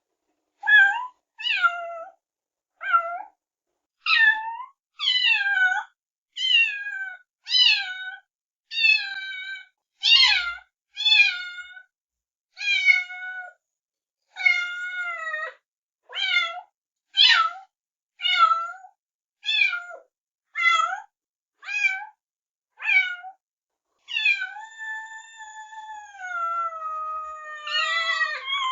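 Kittens meowing: a quick run of short, high, falling meows about one a second, with one long drawn-out meow near the end.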